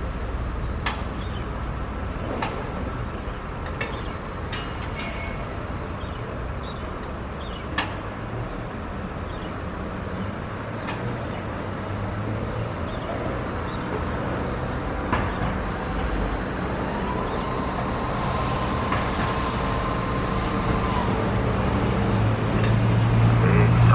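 Distant jet engines of a Boeing 777 taxiing: a steady rumble and whine, growing louder near the end.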